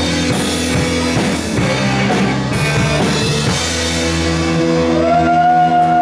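Live rock band playing loud: electric guitars and a drum kit with cymbal crashes, then from about three and a half seconds in the band holds a sustained chord, with a high note held over it near the end.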